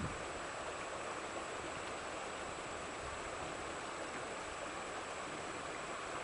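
Steady rushing of running water with no breaks, and a thin steady high tone above it.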